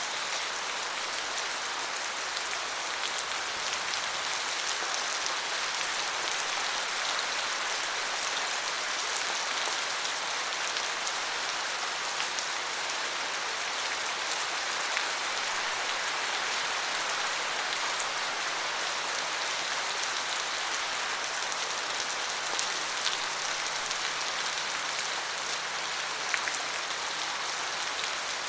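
Steady rain falling, an even hiss of many fine drops with scattered individual patters.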